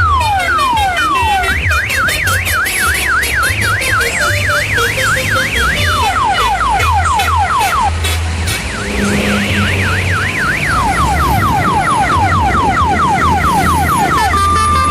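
Electronic siren horn cycling through its patterns: repeated falling wails about three a second, then a rapid up-and-down warble about four times a second, then faster falling wails, the warble again, and falling wails near the end, over a low throbbing hum.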